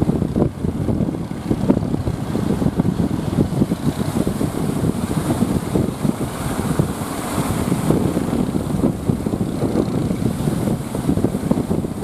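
Strong wind blowing across the microphone: a continuous rough, fluttering rumble.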